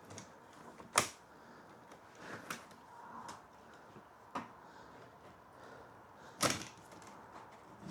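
Knocks and clicks from handling a wooden large-format field camera, a few separate strikes with the loudest about six and a half seconds in.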